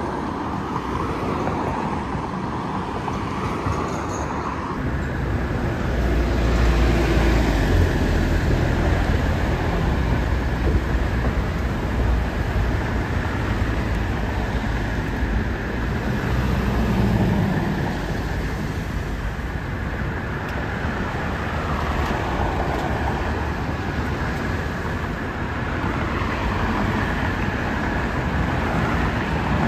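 Road traffic at an intersection: buses and cars passing and waiting, with a steady low engine rumble from about five seconds in.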